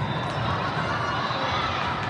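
Steady, echoing hubbub of a large indoor hall with several volleyball games going on: many distant voices and shouts blended together.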